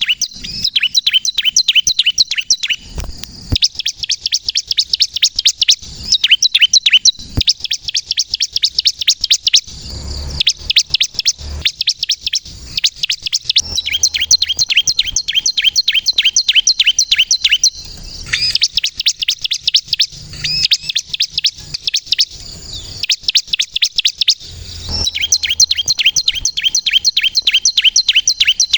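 Bar-winged prinia (ciblek kristal) singing: rapid strings of sharp, high chirps, several a second, in bouts of a few seconds separated by short breaks.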